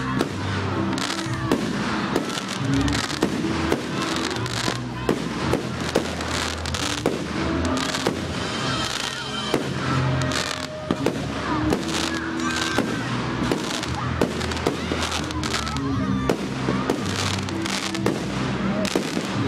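Fireworks display: aerial shells bursting in a quick, irregular run of bangs and crackling, with music playing underneath.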